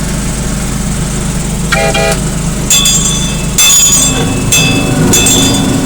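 Engine of a small 18-inch gauge locomotive running steadily, with a short horn toot about two seconds in. The engine picks up in pitch just past the middle, and several sharp high-pitched squeals come as the train gets under way.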